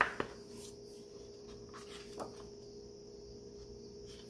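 A page of a large photo book being turned and laid flat: a short paper flap and rustle at the start, a softer paper touch about two seconds in, then quiet room tone with a faint steady hum.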